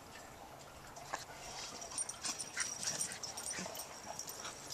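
Dog whimpering faintly, with a few short soft sounds scattered through.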